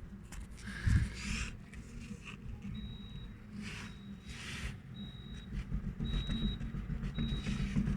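Lada Vesta's front left wheel and suspension being worked by hand, giving dull knocks and rattles; the owner suspects a worn steering tie rod end. A short high beep repeats about once a second from about three seconds in.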